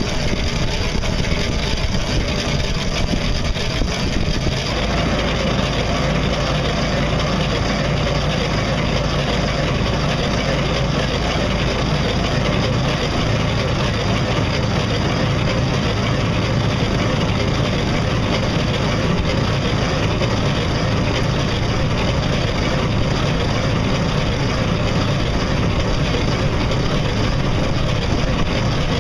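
Homemade solar pedal boat under way: a steady rush of water and wake with a low, even hum from the boat's drive. The sound changes character about five seconds in.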